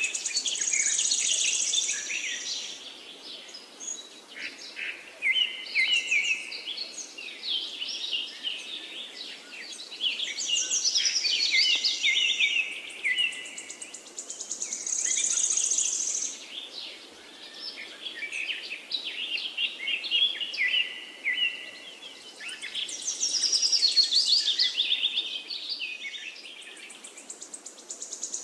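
A songbird singing: repeated phrases of high chirps, stepping notes and fast trills, each phrase lasting a few seconds with short dips between.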